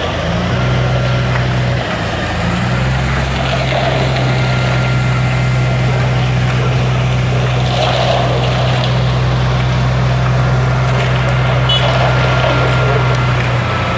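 A large engine running at a steady speed, a constant low hum with no change in pitch.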